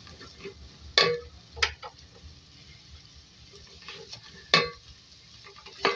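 Wooden spoon stirring sliced onions and spices in hot oil in a metal pot: a few sharp scrapes and knocks of the spoon against the pot, over faint sizzling of the frying.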